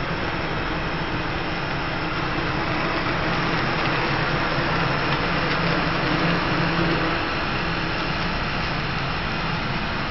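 CNC router spindle running while a thin end mill cuts through a foam block: a steady motor hum under an even cutting hiss, a little louder around the middle.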